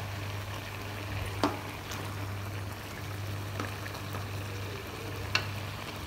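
Tomatoes boiling in water in an aluminium pot, a steady bubbling over a constant low hum. A metal slotted spoon knocks the pot with a few sharp clicks, the loudest about a second and a half in and again about five seconds in.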